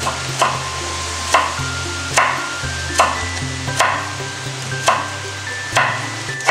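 A chef's knife chops through carrot into julienne strips on a wooden cutting board, with a sharp, crisp chop about once a second. Music with held notes plays underneath.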